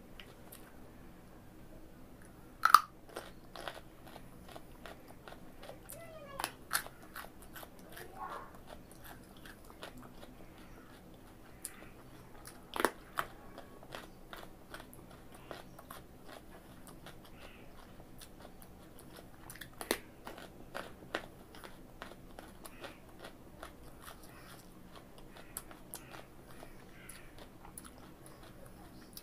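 Raw carrot bitten and chewed close up: a run of crisp crunches and snaps, a few much louder bites standing out among quieter chewing.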